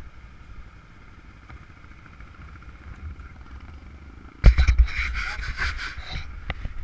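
Motorcycle engine idling with a steady low rumble. About four and a half seconds in, a loud, rough buffeting on the microphone starts suddenly and lasts under two seconds.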